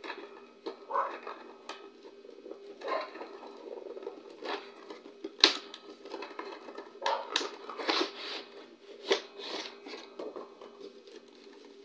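Cardboard toy box and its plastic packaging being handled and opened: irregular rustling, scraping and crinkling, with a sharp snap about five seconds in and a busier run of rustles between about seven and nine seconds. A faint steady hum sits underneath.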